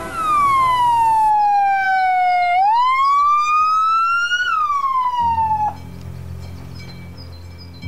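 Ambulance siren wailing in one long sweep: down in pitch, up again, then a slight drop before it cuts off sharply about three-quarters of the way through. A low steady hum follows.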